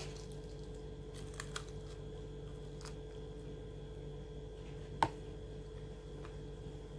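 Mouth sounds of eating finger food: a few soft wet clicks and smacks, with one sharp click about five seconds in, over a steady electrical hum.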